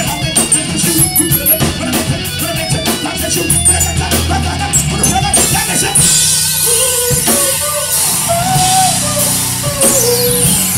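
Live rock band playing: drum kit and guitar. Steady drum hits for the first six seconds, then held notes under a wash of cymbals.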